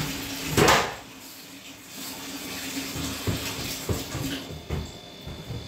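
Wet laundry being handled at a semi-automatic washing machine. There is one loud swish about half a second in, followed by a few light knocks and clicks from the machine's lid and controls.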